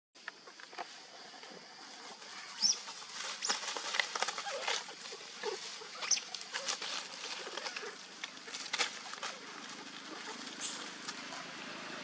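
Monkeys moving about close by: scattered clicks, taps and rustling, with a few short high squeaks.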